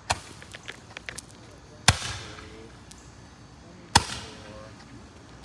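A consumer multi-shot firework cake firing: four sharp bangs about two seconds apart, each trailing off in a fading echo, with a few small crackles after the first.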